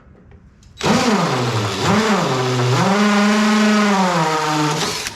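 Power drill drilling out a trailer rivet. The motor's pitch dips and recovers twice as the bit bites into the rivet, then it runs steadily for a couple of seconds, slows slightly and stops.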